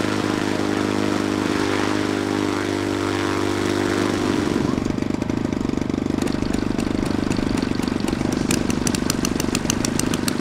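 Model warbird's radial engine running loud and steady, its pitch sagging slightly over about four seconds, then changing to a rougher, lower note with quick regular clicks toward the end.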